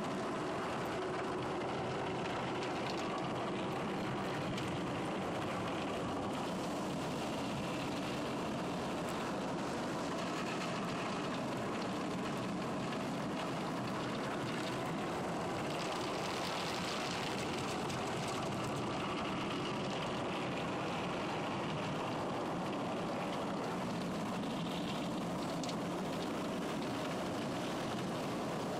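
Automatic car wash heard from inside the car: a steady rush of water and foam spraying onto the glass over the hum of the wash machinery, with a stronger hiss of spray about sixteen seconds in.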